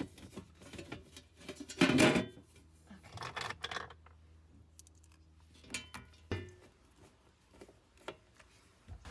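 Knocks and clatter of a floor-mounted battery cover panel being set back in place and fitted, with the loudest knock about two seconds in and a few softer ones after.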